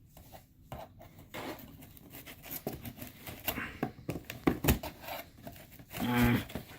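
Cardboard shipping package being cut and opened by hand: an uneven run of scratches, clicks and rustles of cardboard and packing tape, with a brief pitched squeak or hum about six seconds in.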